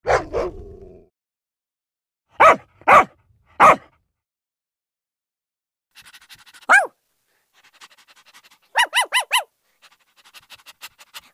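Dog barking: one bark at the start and three more about two and a half seconds in. Later come a single high yelp that falls in pitch and a quick run of four high yips.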